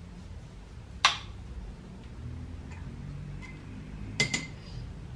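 Paintbrush clinking against a glass water jar while being rinsed: one sharp tick about a second in and a quick double clink with a brief ring near the end.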